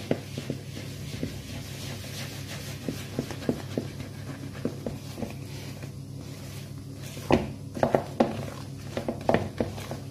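A spoon working flour into stiff biscuit dough in a bowl: irregular scrapes and knocks against the bowl, sharper and louder from about seven seconds in, over a steady low hum.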